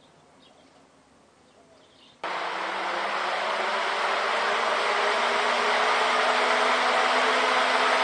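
Homemade 12V DC box fan driven by a car radiator fan motor, faint at first, then about two seconds in it kicks up abruptly with a click into loud rushing air and a steady motor hum, growing louder over the next few seconds as it spins up to speed.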